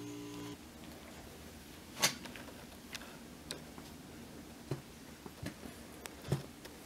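A low steady hum cuts off about half a second in. Then come faint scattered clicks and light taps in a small quiet room, a second or so apart, the sharpest about two seconds in.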